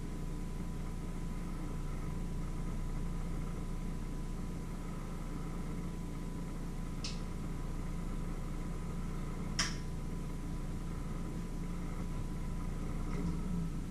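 A steady low mechanical hum, with two short sharp clicks about seven and nine and a half seconds in.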